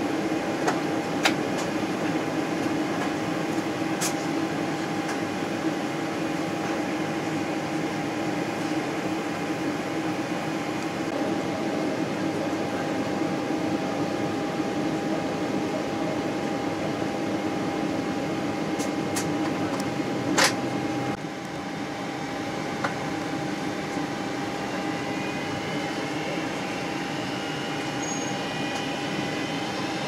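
Airliner cabin noise during descent: the steady drone of the jet engines and rushing air with a constant hum. A few light clicks sound through it, the sharpest about two-thirds of the way through, just before the drone eases a little.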